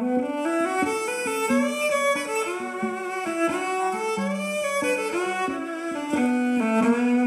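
Violin playing an instrumental passage: a bowed melody moves over held low notes, with several violin parts sounding at once, layered with a loop station.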